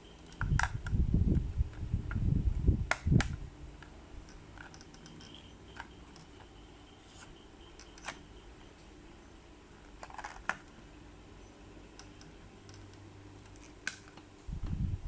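Handling noise from unboxing: rumbling bumps and rustle against the microphone for the first three seconds or so, then a few scattered light clicks and taps.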